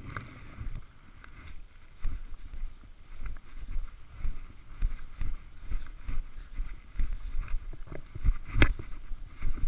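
Wind buffeting the microphone of a body-worn camera as a low rumble, with scattered crunches and knocks of snow, ski gear and clothing. There is one sharper knock near the end.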